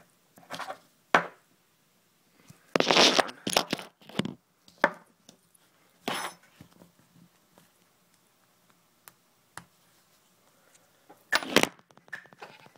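Small metal spacers and parts of a BMX hub driver clinking and knocking as they are pulled out and handled: scattered sharp clicks, a busy cluster about three seconds in, and another clink near the end.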